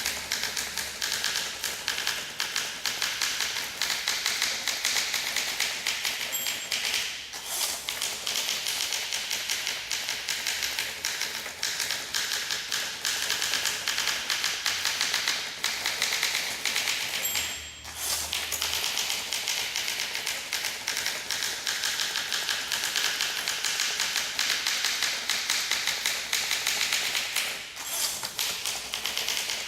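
1958 Olympia SM2 manual portable typewriter being typed on steadily, a fast continuous run of key strikes with brief pauses about every ten seconds.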